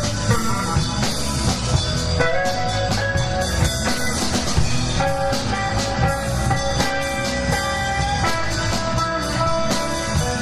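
Live rock band playing: guitar over a drum kit in a steady beat.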